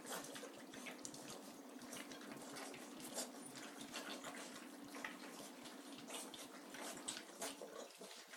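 Bull terrier puppies eating together from one dish: a steady, irregular run of wet smacking and lapping sounds as the litter feeds.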